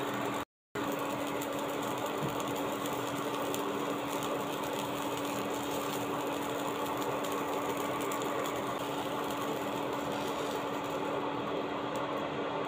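Egg and tomato slices frying in oil in a nonstick pan: steady sizzling over a constant hum. It cuts out completely for a moment just after the start.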